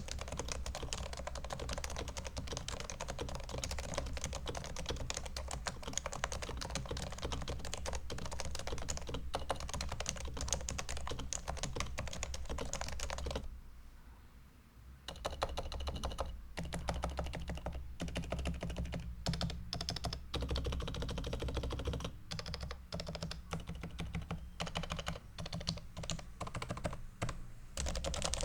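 Typing on a Topre electrostatic capacitive keyboard (a Realforce 101 cut down to tenkeyless, with 45 g domes, a steel plate, lubed sliders and silencing rings): fast runs of key presses, with a pause of about a second and a half just past the middle.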